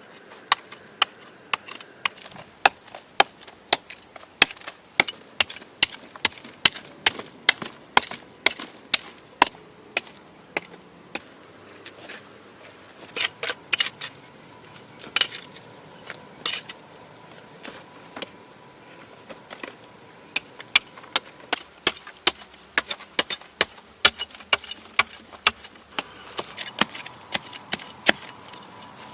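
Repeated sharp chopping strikes on wood, roughly two a second, with a few short pauses between runs.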